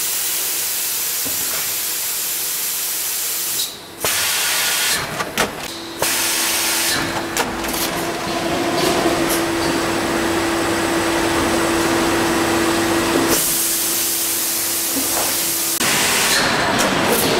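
Velteko HSV50A oil bag-filling and sealing machine running: a steady hiss with a few short clicks and knocks, and a steady hum through much of the middle. The sound dips briefly about four and six seconds in.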